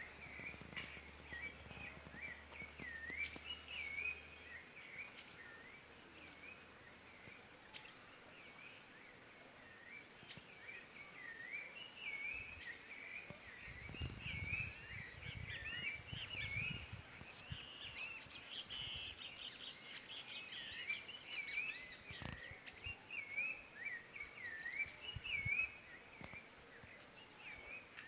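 Rufous-bellied thrush (sabiá-laranjeira) singing a long run of short, swooping whistled notes over a steady high-pitched insect drone. A few low thumps come around the middle and a single sharp click a little later.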